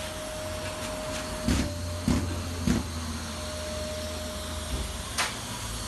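A steady mechanical hum with a thin constant tone, broken by sharp knocks: three about half a second apart about a second and a half in, and one more near the end.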